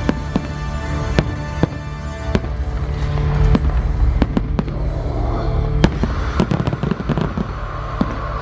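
Fireworks going off over a music soundtrack: separate sharp bangs in the first half, then a rapid cluster of crackling pops about six to seven seconds in, with held musical notes underneath.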